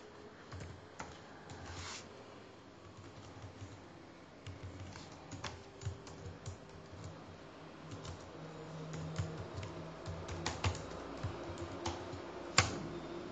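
Typing on a computer keyboard: irregular key clicks, busier about two-thirds of the way through, with one louder key strike near the end.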